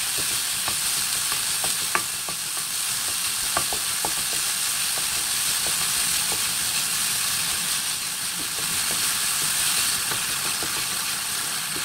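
Diced onion and salted octopus frying in oil in a wok: a steady sizzle, with a spatula stirring and scraping through the food and light, irregular taps against the pan.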